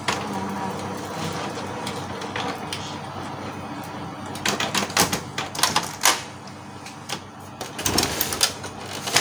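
Canon MP287 inkjet printer's mechanism running with a steady hum, then a quick run of sharp clicks and clacks about halfway through. A few more knocks near the end come from hands handling the printer's casing.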